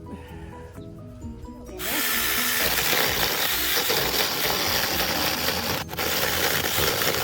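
Cordless 6-inch mini chainsaw starting up about two seconds in and running steadily, its chain cutting into wood, with a brief dip near the end; background music underneath.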